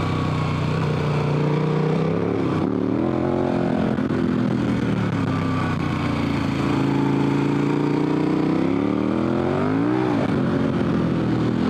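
KTM 1190 Adventure R's V-twin engine under hard, full throttle, the revs rising and falling through the corners, dropping briefly about three seconds in and again near the end before climbing back.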